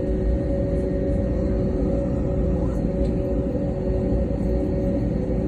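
Airliner cabin noise just after landing: a steady low rumble with a constant droning hum from the jet engines at idle as the plane taxis.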